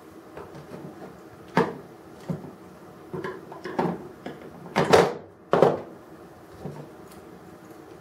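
Irregular hard clacks and knocks from handling diecast model crane parts and tools on a workbench, about eight hits, loudest around the middle, with no drill running.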